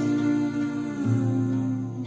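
Slow ballad music with long held notes; the low note shifts to a new pitch about halfway through.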